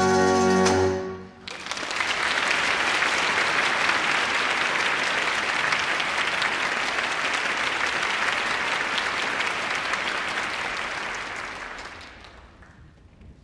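An orchestra's closing chord cuts off about a second in, followed by audience applause that fades away near the end.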